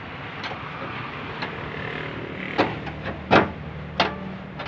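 Metal window run channel being worked out of a car door, giving three sharp knocks and clicks against the door frame, the middle one loudest, over a steady low hum.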